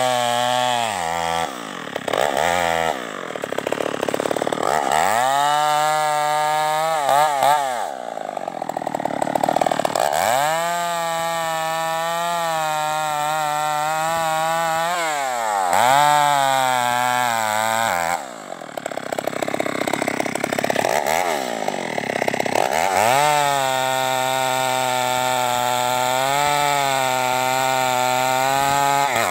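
Stihl MS 381 two-stroke chainsaw with its muffler opened up, cutting a felled log: the engine is revved up and held at high speed through several long cuts, dropping back and blipping up again between them.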